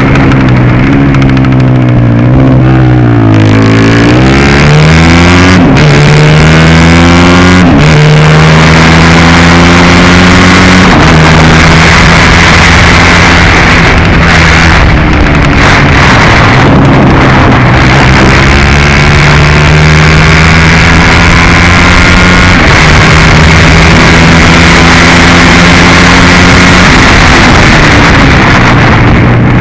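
150 cc kart engine heard from onboard at racing speed, very loud. The revs fall into corners and climb out of them, with sudden drops in pitch about 6 and 8 seconds in, and hold steady along the straights.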